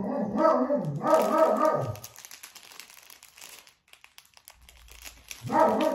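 A short pitched vocal sound for about the first two seconds, then small plastic bags of diamond painting drills crinkling faintly as they are handled.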